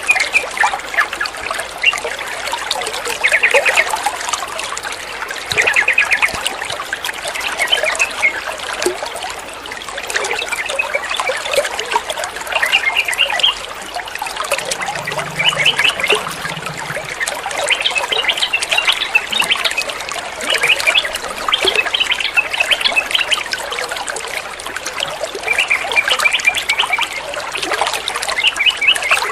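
Yellow-vented bulbuls calling in short bursts of rapid chattering notes every couple of seconds, over a steady trickle of running water.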